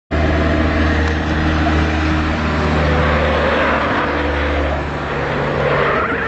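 A car engine running with a steady low drone while its tyres squeal in wavering, curving tones that grow stronger in the second half.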